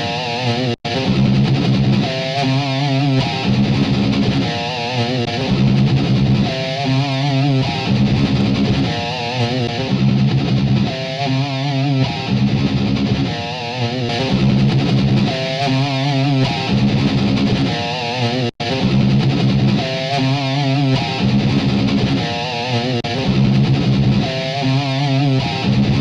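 Distorted electric guitar riff from a Logic Pro sample library, repeating over and over. The sound cuts out very briefly twice, about a second in and again about two-thirds of the way through.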